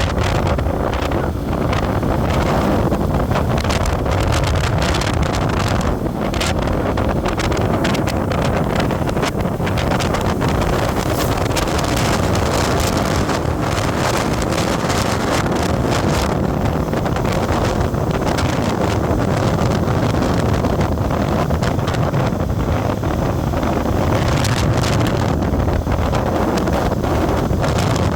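Steady wind noise on the microphone of a moving vehicle, with road and vehicle noise underneath, unbroken and loud.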